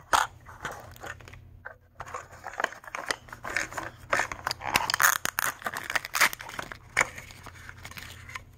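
A plastic Mini Brands capsule ball being opened and its small printed plastic wrappers crinkled and torn, with irregular clicks and rustling throughout.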